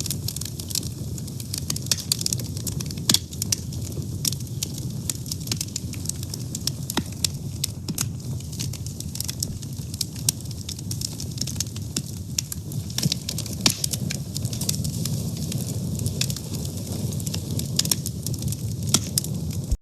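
A fire burning steadily: a low rumble of flames with frequent sharp, irregular crackles and pops.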